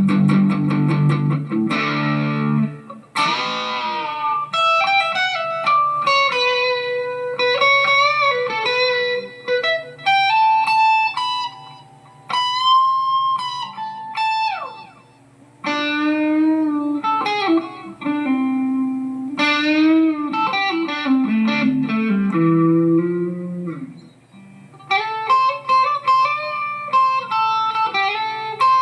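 Electric guitar played through a Mooer GE150 Pro Li multi-effects processor. It opens with a few thick, distorted chords, then plays a melodic lead of single notes with bends and vibrato, in phrases with short pauses between them.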